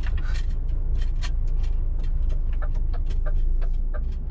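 DAF truck's diesel engine idling with a steady low rumble while the indicator ticks about three times a second, the ticking coming through clearly from about halfway in.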